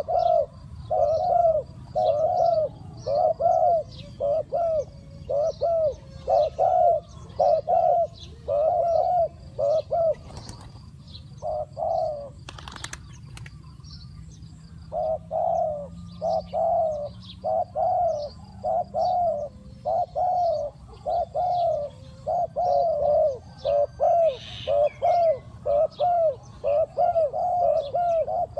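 Spotted dove cooing as a decoy to call wild doves: a quick run of short, repeated coos, about two a second, broken by two brief pauses in the middle. Faint chirps of small birds are heard in the background.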